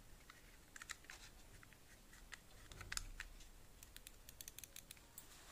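Faint small clicks and taps of plastic computer-mouse parts being handled as the scroll wheel is fitted back into the opened mouse: scattered light ticks, a slightly louder knock around three seconds in, and a quick run of ticks near the end.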